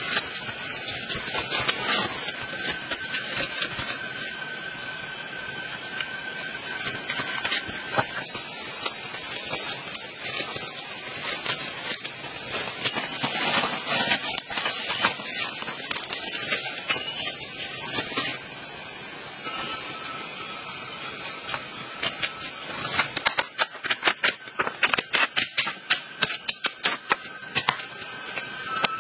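Tropical forest ambience with a steady, high-pitched insect drone. From about 23 seconds in, a rapid run of sharp knocks and clatters comes in, from wooden sticks being handled and laid down.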